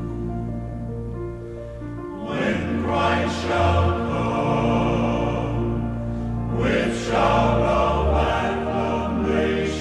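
Background music: sustained choir voices over held chords, swelling louder about two seconds in and again near seven seconds.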